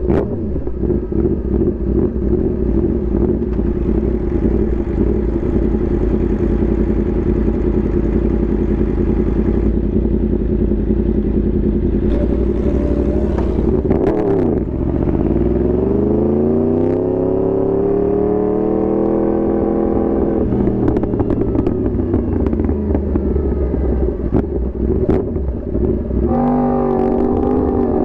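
Yamaha R1 sport bike's inline-four engine running under way. About fourteen seconds in the pitch drops sharply, then climbs steadily for several seconds as the bike accelerates, and near the end the engine holds at a higher steady pitch.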